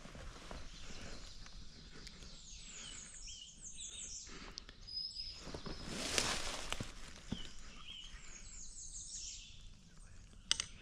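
Songbirds singing: repeated quick runs of high, falling chirps over a faint outdoor background. There is a short rush of noise about six seconds in and a sharp click near the end.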